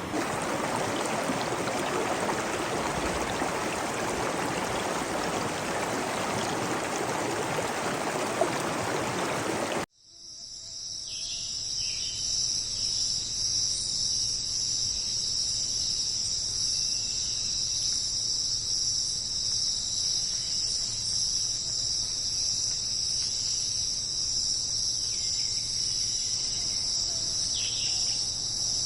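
A steady rushing noise cuts off abruptly about a third of the way in. It gives way to a dense insect chorus: a continuous, high, even chirring, with a few faint short calls beneath it.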